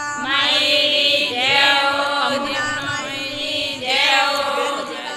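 Women's voices singing a Rajasthani devotional folk song (a Ganga Maya geet) in a chant-like style, with long held notes and new phrases starting about a second and a half in and again near four seconds.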